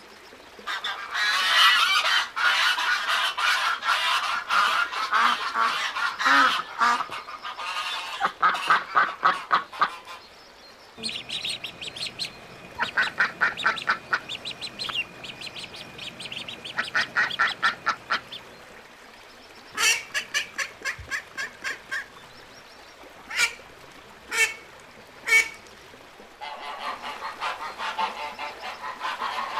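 A flock of ducks calling. A dense chorus of overlapping calls runs for about the first ten seconds, then come runs of quick repeated calls, a few single calls, and near the end the chorus builds again.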